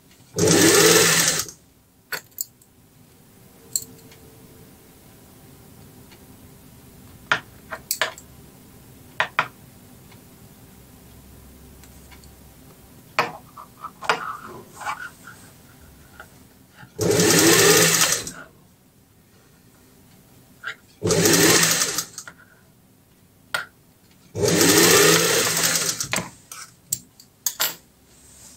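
Industrial sewing machine stitching a seam in four short bursts: one near the start, then three close together in the second half. Between them, small clicks and rustles of fabric being handled.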